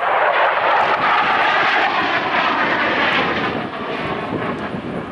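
Jet noise from an F-16 Viper fighter flying a demonstration manoeuvre. The noise is loud and steady, then eases off somewhat after about three and a half seconds as the jet banks away.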